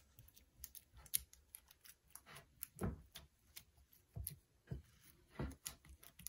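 Silicone spatula pressing and scraping thick oat-flour dough around a bowl: faint, irregular soft taps and scrapes.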